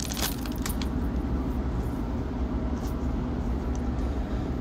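A steady low hum, with a few short crinkles of a foil trading-card pack wrapper in the first second.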